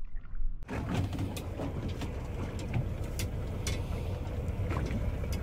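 Boat engine running steadily with a low rumble, mixed with wind and water noise and a scatter of light clicks; it starts abruptly just under a second in.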